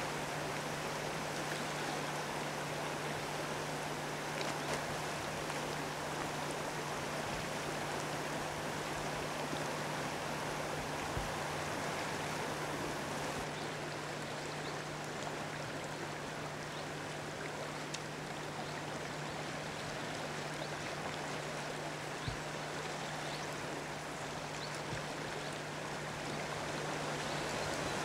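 Fast-flowing river water rushing steadily through a shallow riffle, with a faint steady low hum beneath it.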